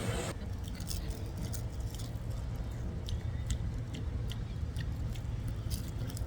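Crisp seasoned seaweed snack being chewed, with small scattered crackling clicks, over a steady low rumble.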